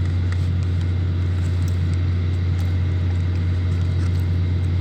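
Steady low drone of running machinery, unchanging throughout, with a few faint clicks over it.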